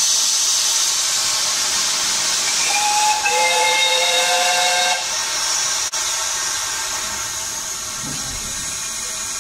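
Steady steam hiss from a vertical-boilered Sentinel steam locomotive, with its steam whistle sounding a chord of several notes for about two seconds, starting about three seconds in.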